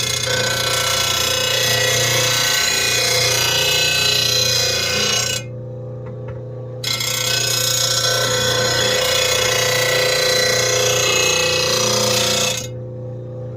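RBG-712 blade sharpener's grinding wheel running, with a lawn mower blade drawn across the wheel in two long grinding passes. The grinding breaks off for about a second and a half some five seconds in, while the motor's steady hum carries on.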